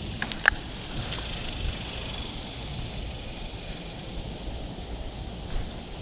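Outdoor ambience: a steady high hiss over a low rumble, with a few light clicks in the first half second.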